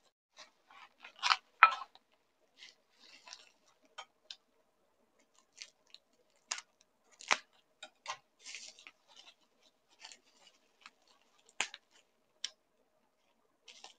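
Scissors snipping through bubble-wrap packing, in scattered irregular cuts with brief crinkling of the plastic between them. The loudest snips come a little over a second in, about halfway through and near the end.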